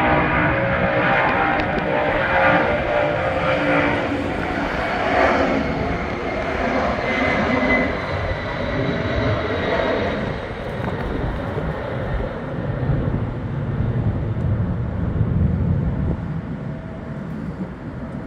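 A Boeing 767-200 freighter's twin Pratt & Whitney JT9D turbofans at takeoff power. Several steady whining fan tones sit over a broad rumble at first; the tones thin out about halfway, and the rumble fades slowly near the end as the jet climbs away.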